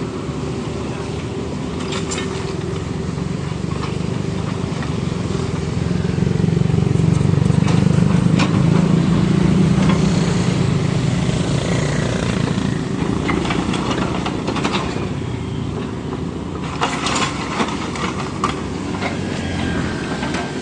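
Diesel engine of a Kubota U50 mini excavator running and working harder for several seconds in the middle. Sharp metallic clanks come about two seconds in and again in a cluster near the end.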